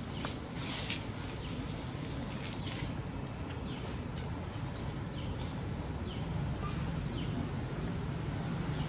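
Outdoor tree-canopy ambience: a steady high-pitched drone, a scatter of short high chirps, and a low rumble underneath.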